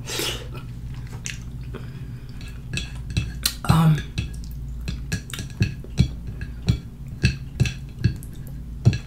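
Long fingernails and fingers clicking and scraping on a plate as food is scooped up by hand, a run of short sharp clicks that comes faster in the second half. Fingers are licked at the start.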